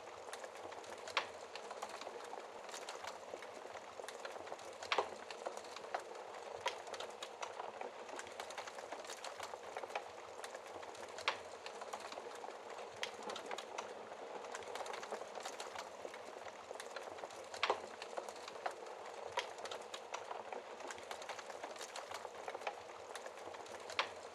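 Wood fire burning in a fireplace: a steady hiss of flames with constant small crackles and a few louder sharp pops, about five in all.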